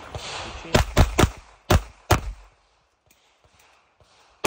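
Pistol shots: a quick string of about five shots in the first two seconds, a pause of about two seconds, then another shot right at the end.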